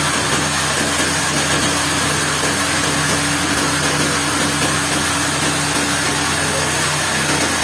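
Sawmill machinery running steadily: a constant engine-like hum with a steady hiss over it.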